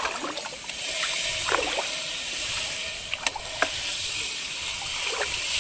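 Water trickling and splashing as someone works in shallow water, over a steady hiss, with a couple of short sharp clicks about three seconds in.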